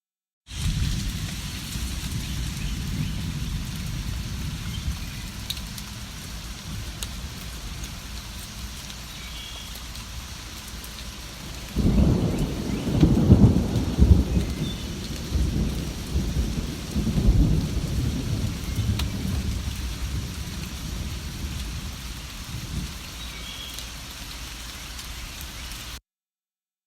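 Steady rain falling, with a long low roll of thunder that starts suddenly about halfway through and rumbles for several seconds before dying away. A few faint bird chirps sound now and then. The track drops to dead silence briefly at the start and again near the end.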